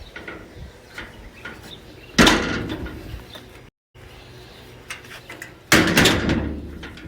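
Kitchen door being shut with a loud bang, twice, about three and a half seconds apart. Each bang rattles and dies away over about a second.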